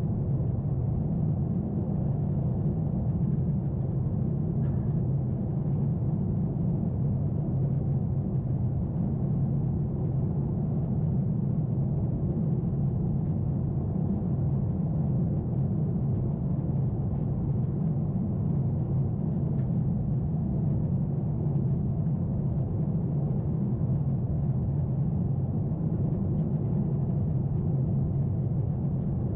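Steady low roar inside the cabin of a Boeing 747-8 airliner in its climb: engine and airflow noise, unchanging throughout, with a couple of faint ticks.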